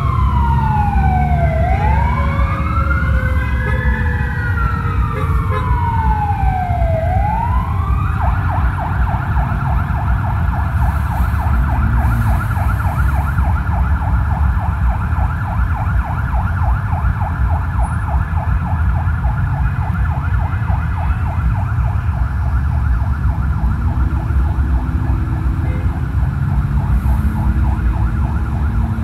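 Emergency vehicle sirens: a slow rising-and-falling wail with a second siren overlapping it, switching about eight seconds in to a rapid warbling yelp that carries on. A steady low engine rumble runs underneath.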